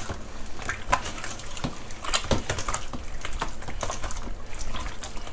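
Hands squeezing and kneading raw pork belly in a wet marinade in a stainless steel bowl: a steady run of irregular wet squelches and slaps.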